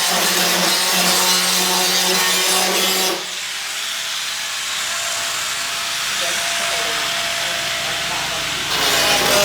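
A power tool working wood, running with a steady whine and hiss; it drops quieter about three seconds in and picks up again near the end.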